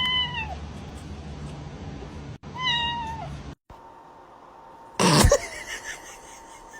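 A domestic cat meowing twice, each a short call held steady and dropping at the end, then a short loud noisy burst about five seconds in.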